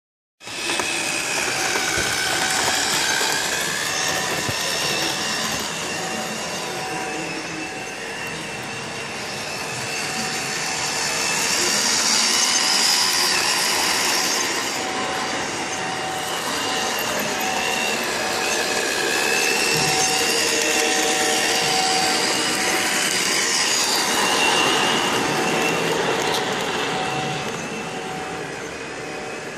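O-gauge model locomotive, a LIMA LMS 4F converted to run on three-rail track, running along the rails: a steady electric motor whine with wavering pitch over the hiss and rumble of the wheels. It swells twice as the engine passes close.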